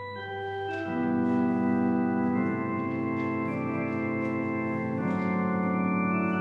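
Background music of slow, sustained organ chords over a low held drone, swelling as more notes come in about a second in, with the chord changing a couple of times.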